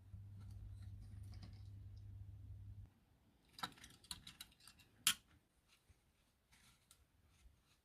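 A low steady hum that cuts off about three seconds in, then a run of small sharp clicks with one loud snap about five seconds in, as of hands working the plastic casing of a Milwaukee M18 battery pack during a repair.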